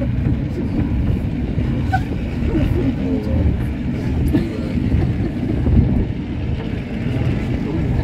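Water-balanced Victorian cliff railway car travelling on its rails: a steady low rumble from its wheels on the track and the running cable.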